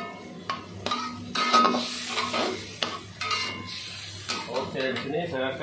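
Metal spatula scraping and knocking against a metal wok as chicken pieces are stirred in a little hot liquid, with the liquid sizzling underneath.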